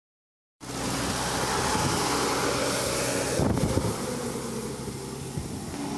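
VST Shakti Viraat 27 hp compact tractor running steadily, driving the blower fan of a 600-litre air-blast sprayer. The engine hum sits under a strong rushing hiss of air, which eases a little after about four seconds.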